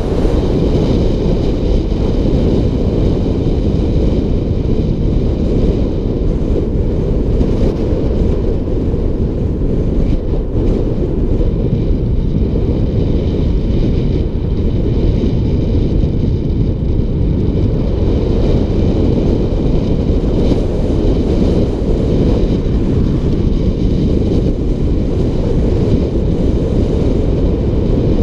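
Steady, loud wind rush buffeting the microphone at speed on a fast downhill ride, with a faint steady whine above it.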